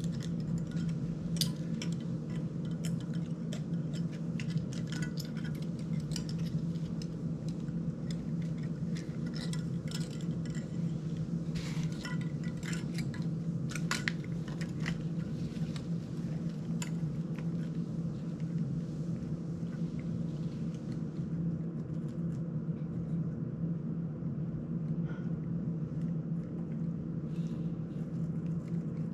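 Small hard clicks and clinks of a GEPRC CineLog35 cinewhoop's frame, prop guards and screws being handled and fitted, dense at first and thinning out after about twenty seconds, over a steady low hum.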